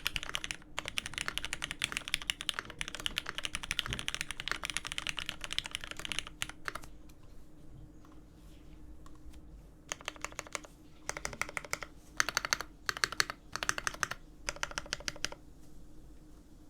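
Typing on a custom mechanical keyboard with lubed Cherry Hyperglide Black linear switches (67 g springs) on an aluminium plate, with GMK keycaps. Fast continuous keystrokes for about six seconds, a pause of about three seconds, then six short bursts of rapid keystrokes that stop shortly before the end.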